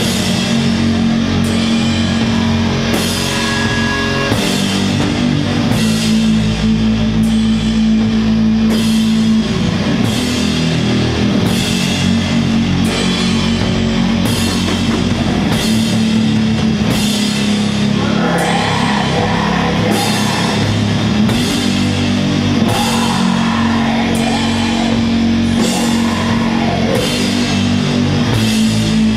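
Doom metal band playing live: heavy guitar and bass chords held long and low under drums, with a cymbal struck on a slow, steady beat about every second and a half. A wavering higher line joins in over the last third.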